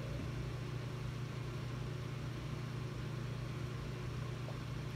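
Steady low background hum with no other distinct sound.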